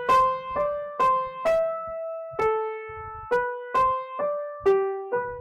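Intro music: a simple melody of about ten single keyboard notes, each struck and fading, with two longer held notes in the middle.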